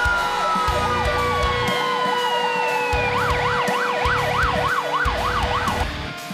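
Several fire engine sirens sounding at once: a steady tone, a wail falling slowly in pitch, and a fast warbling yelp that jumps higher and wider about halfway through. They all cut off shortly before the end.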